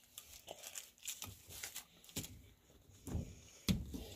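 Faint crinkling and rustling of plastic wrappers being peeled off juice-box straws, with light handling noises and a sharp click a little before the end.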